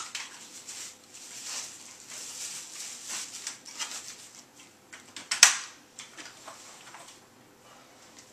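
Clear plastic packaging rustling and crinkling as it is pulled off and handled, in short bursts, with one sharp loud crackle about five seconds in.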